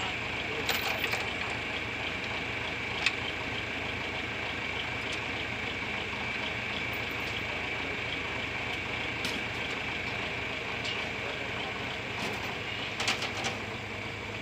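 Tractor engine idling steadily, with a few sharp knocks from work on the cab, the sharpest about three seconds in and a quick cluster near the end.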